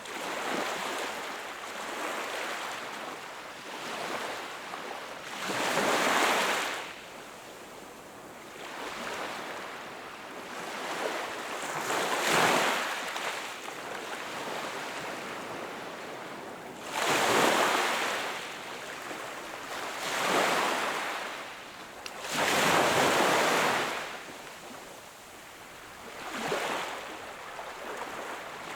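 Small sea waves breaking and washing on the shore, each surge swelling and fading every few seconds over a steady background wash.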